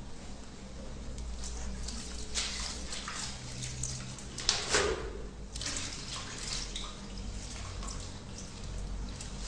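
Water sloshing and splashing in the tub of a mini washing machine, over a low steady hum.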